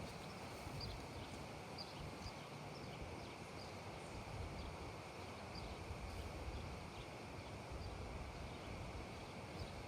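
Quiet outdoor neighbourhood ambience: a steady low rumble and hiss, with faint, scattered high chirps every second or so.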